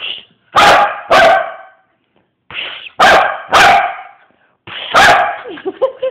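A dog barking loudly at close range: about five barks, mostly in pairs about half a second apart.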